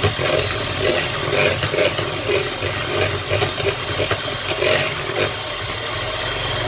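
Electric hand mixer running steadily, its twin beaters whipping egg yolks into beaten egg whites and sugar for a sponge cake batter.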